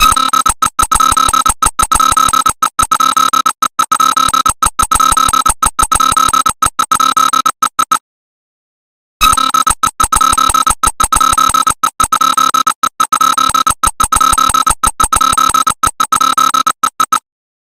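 Electronic emergency alert tone: one harsh, high pitch with strong overtones, chopped into rapid pulses. It runs for about eight seconds, breaks off for about a second, then sounds again and cuts off just before the end.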